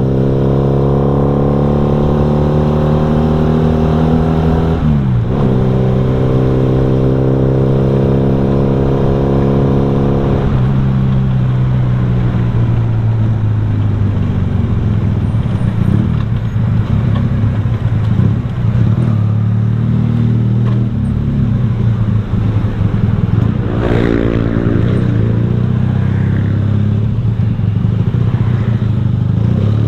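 Honda Revo's single-cylinder four-stroke engine running through a racing exhaust while riding, at steady revs with a brief drop and recovery in pitch about five seconds in. Partway through the engine note gives way to a rougher, noisier stretch, and it rises again near the end.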